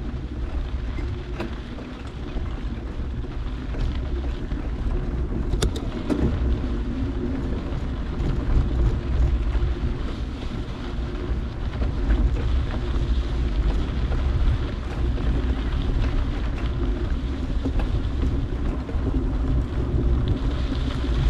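Wind blowing on the microphone: a steady low rushing noise, with a couple of brief clicks about six seconds in.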